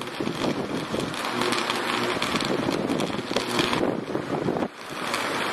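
Sustained high-voltage arc burning at a pole-mounted fuse cutout, a steady crackling hiss with a brief drop in level about four and a half seconds in. It is the sign of an electrical fault arcing across the cutout's contact.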